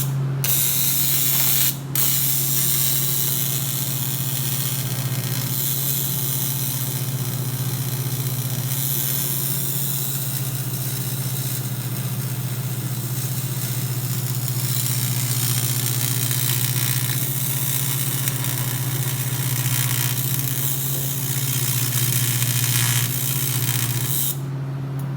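A grinder grinding down aluminum weld, cleaning up the welded repair on the rear wheel tub. The grinding runs steadily, with a brief break about two seconds in, and stops shortly before the end.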